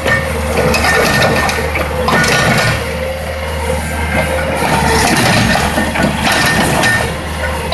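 Diesel engine of a Bobcat T300 compact track loader running steadily.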